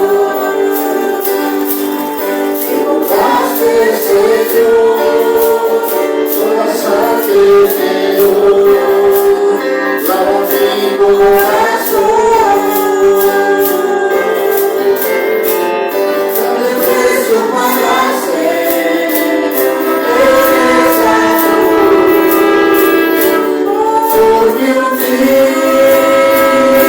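Praise music: voices singing over instruments, with a steady beat of high percussion strikes.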